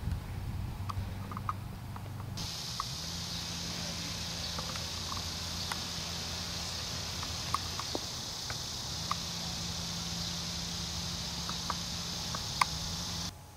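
Steady, high-pitched insect chorus droning without a break. It starts abruptly about two seconds in and cuts off sharply near the end.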